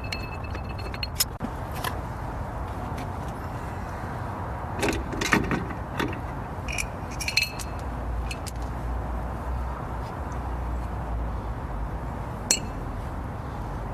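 Scattered clicks and light metal clinks, a cluster of them about five seconds in and one sharp click near the end, over a steady low rumble.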